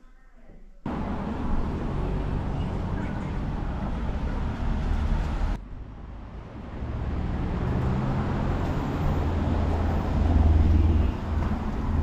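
Street traffic noise with a low engine hum. It cuts in suddenly about a second in and dips briefly near the middle before picking up again.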